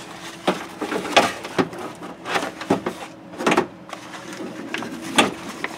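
A metal power window regulator assembly, with its cables, knocking and rattling against the inside of a pickup door as it is worked into the door cavity: a series of irregular sharp clanks and scrapes.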